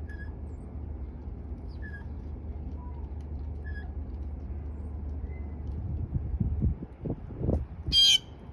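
Blue jay giving one loud, harsh squawk near the end, over a steady low rumble. Faint short chirps come every couple of seconds before it, with a few low thumps just before the squawk.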